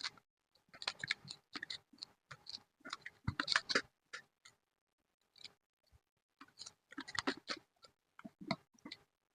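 Paper and craft materials being handled during scrapbooking: irregular crinkles, rustles and small clicks, with a silent gap of about a second and a half near the middle.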